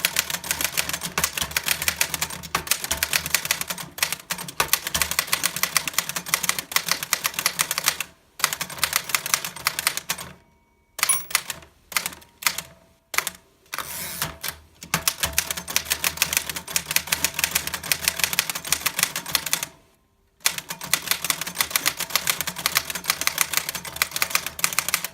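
A 1910 Royal Model 1 flatbed typewriter being typed on: fast runs of sharp key and typebar strikes, broken by a few brief pauses and some slower, scattered keystrokes midway through.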